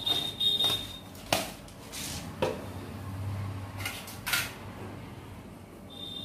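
Steel dishes and kitchen utensils clinking and knocking on a kitchen counter as they are handled and set down, a few separate sharp knocks spread over several seconds.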